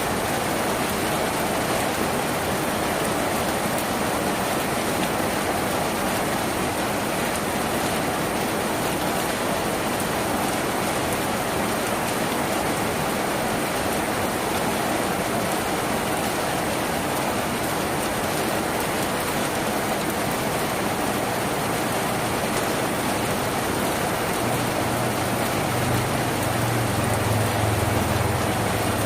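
Steady heavy rain drumming on a tin roof. A low rumble swells in near the end.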